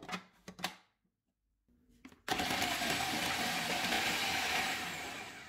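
Electric food chopper's motor running steadily, its blade chopping onion, green chillies, mint and coriander; it starts abruptly about two seconds in, after a few clicks, and eases off near the end.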